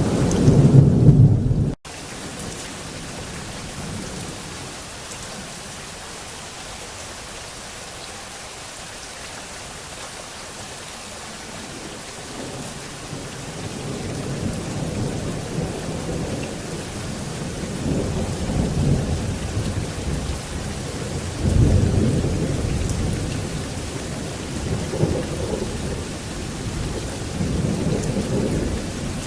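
Heavy thunderstorm: steady rain falling hard with rolling thunder. A loud low rumble cuts off abruptly about two seconds in, then rain hiss alone, with thunder rumbling again from about halfway, loudest about two-thirds of the way through.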